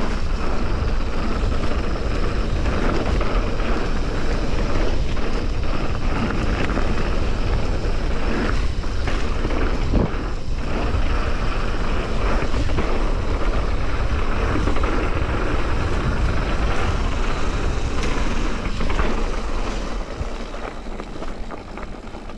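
Mountain bike riding down a dirt trail: wind rushing over the helmet or bike camera microphone and tyres rolling on dirt, with a few knocks from the bike over bumps. It eases off near the end as the bike slows.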